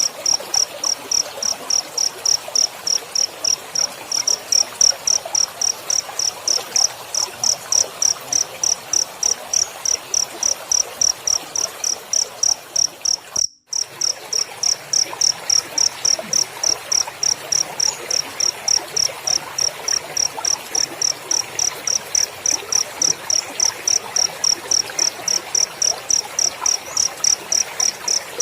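Cricket chirping steadily, an even, high-pitched chirp repeated about three times a second over a faint hiss, breaking off for a moment about halfway through.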